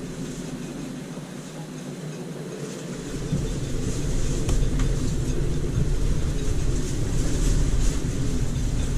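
Strong wind gusting and buffeting the microphone, turning much heavier about three seconds in: the arrival of a squall of sudden gusts up to about 40 knots.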